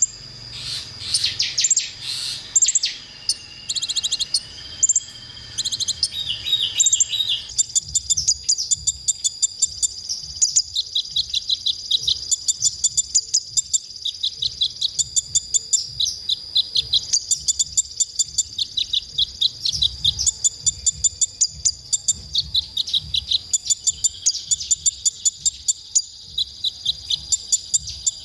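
Male konin sunbird singing: varied high-pitched chirps and trills at first, then from about eight seconds in a long, even run of rapid high chirps, about three to four a second. A steady high whine runs underneath.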